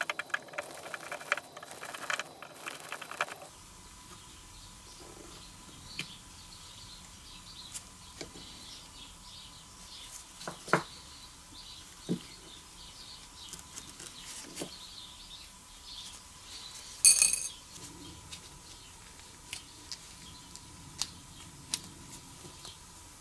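Light metal clicks and clinks from hand work on a Briggs & Stratton carburetor: a screwdriver working the cover screws and small parts being lifted off. The clicking is busy for the first few seconds, then sparse over a faint steady whine, with one louder clink about two-thirds of the way through.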